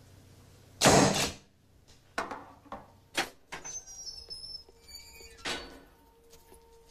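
A heavy thud as a rubber stamp comes down on parole papers, then metal clanks and rattles of a barred prison gate being opened, with a brief high squeak. A soft sustained music tone comes in near the end.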